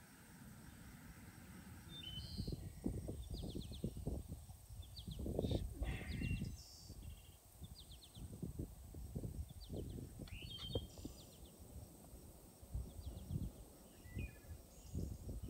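Small birds chirping in short repeated calls, over irregular low thuds and rustles close to the microphone.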